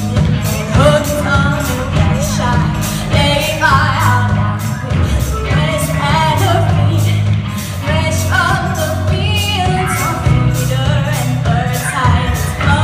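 Live rock band playing: a female voice singing over electric guitars and a drum kit keeping a steady beat.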